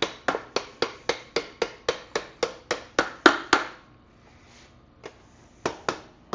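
Plastic-faced mallet striking the end of a dirt bike's rear axle in quick, even blows, about four a second, driving the axle out of the wheel hub. After a pause there are two more blows near the end.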